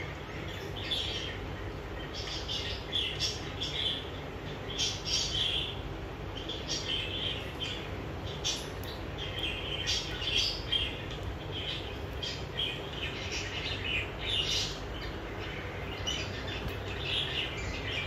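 A pair of caged budgerigars chattering: a steady stream of short, high chirps and warbles with brief gaps, over a low steady hum.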